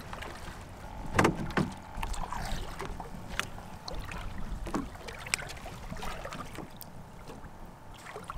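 Knocks and clunks on a small boat's hull as it is brought into the shallows and gear is handled, the loudest a pair of thumps about a second in, with smaller clicks later over a low rumbling background.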